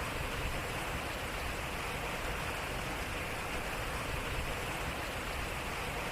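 Water flowing and splashing around a turning water wheel, a steady rush with no distinct knocks.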